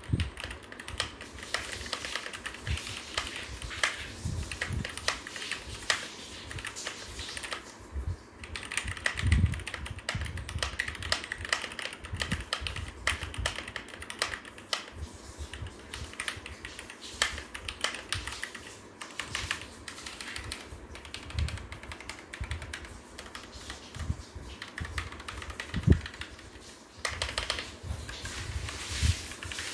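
Typing on a Keychron K2v2 mechanical keyboard with brown switches: a fast, irregular run of key clacks, not too loud, with a couple of brief pauses.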